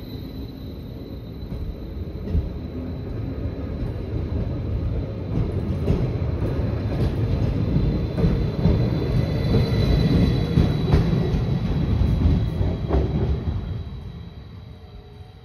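Bayerische Regiobahn electric multiple unit ET 131 pulling out and running past: a rumble of wheels and motors that builds steadily, is loudest a little over two thirds of the way in, then quickly fades. A steady high whine runs under it, with a few sharp clacks of the wheels over rail joints.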